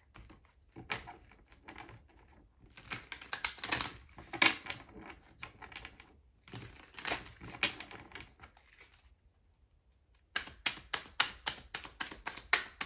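Tarot deck being shuffled by hand: bursts of cards rustling and slapping together, with short pauses between. Near the end comes a quick run of sharp card clicks, about five a second.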